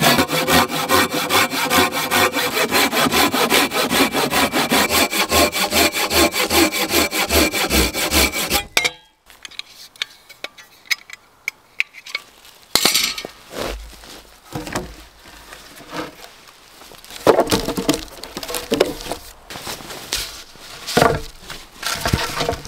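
Pruning saw cutting through stripped wooden poles with fast, even back-and-forth strokes. It stops about nine seconds in, and after a pause comes slower, quieter sawing with scattered knocks of wood.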